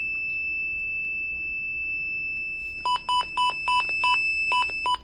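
Midland WR-120 weather radio giving a steady high-pitched tone, with a quick run of short beeps, about four a second, starting about three seconds in. The tone is the fault the owner calls "the plague", which this WR-120 has and the WR-100 does not.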